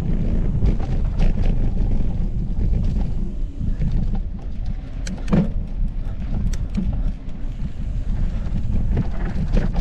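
Mountain bike riding fast downhill: wind buffeting the microphone over a steady low rumble of the tyres, first across wooden boardwalk slats, then on a dirt trail, with frequent sharp clicks and rattles from the bike.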